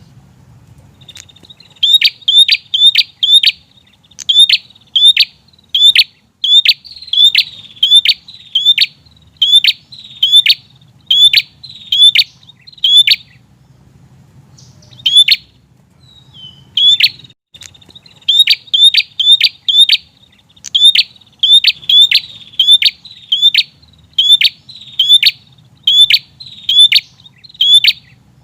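Prinia (prenjak) calling: a long series of sharp, high chirps repeated about two a second, in runs broken by a short pause near the start and a longer one about halfway through.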